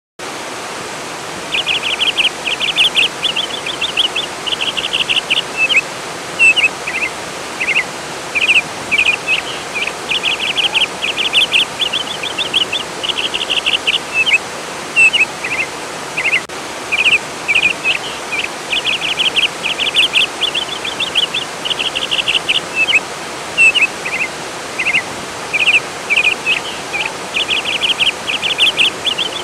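Flowing water, a steady rush, with a songbird singing over it in short repeated phrases of fast trilled chirps. The water starts abruptly just after the beginning, and the birdsong follows about a second and a half in.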